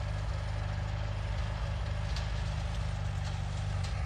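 A machine's engine running with a steady low hum, with a few faint clicks over it.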